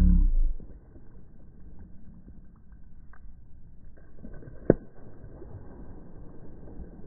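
A man's loud, drawn-out cry trails off in the first half-second. Then come faint, scattered handling noises with a few light ticks, and one sharp knock about two-thirds of the way in.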